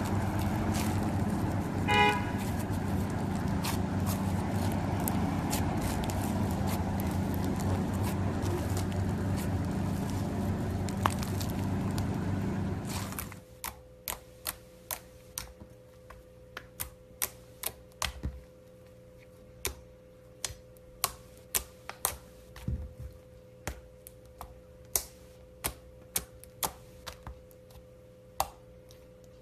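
Blue floam slime crackling and crunching as fingers squeeze its foam beads, with a brief pitched tone about two seconds in. About halfway through it cuts to glossy purple slime pressed flat by a hand, giving sharp clicks and pops of trapped air, one every half second or so.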